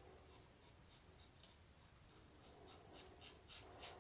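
Faint scraping of an Edwin Jagger double-edge safety razor with an Astra blade cutting lathered beard stubble on the chin, in short repeated strokes about three a second.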